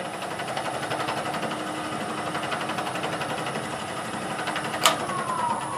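Wood lathe running with a square blank spinning, a steady hum with a fast, even flutter. About five seconds in, a sharp click, after which a whine falls slowly as the lathe winds down.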